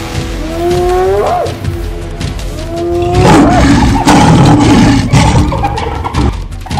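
Spotted hyenas calling: two rising calls, then about three seconds of loud growling and roaring, over background music.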